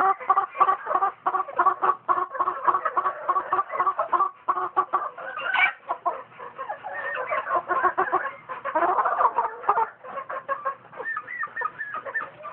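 A flock of gamefowl clucking continuously, many birds calling over one another in quick short notes.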